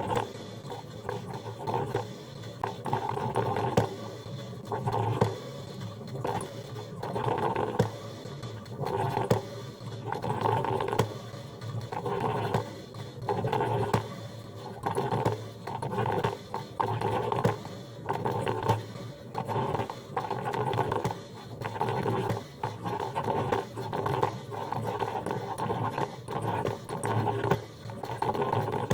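Coffee machine running, with a rough, pulsing noise that swells about once a second.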